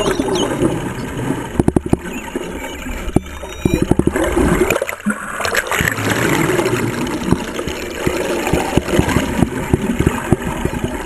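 Sea water rushing, sloshing and gurgling along a sailboat's hull under way, with frequent short splashes.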